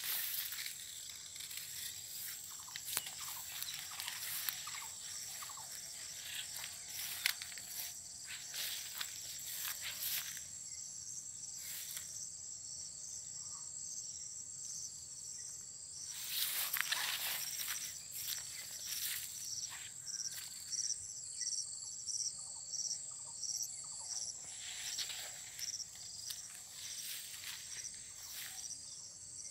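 Insects chirring in the garden: a continuous high, thin buzz, joined from about two-thirds of the way in by a second insect's call pulsing about once a second. A few louder rushes of noise come and go, the strongest a little past the middle.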